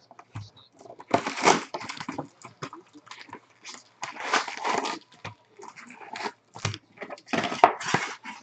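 A cardboard trading-card box being torn open and its foil-wrapped card packs pulled out and stacked, with rustling and crinkling in three heavier bursts about one, four and seven and a half seconds in.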